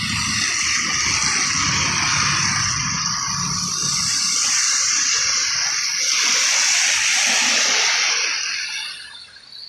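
Tyres of passing cars and motorcycles hissing and spraying on wet asphalt. The hiss swells as a car passes close and fades away near the end.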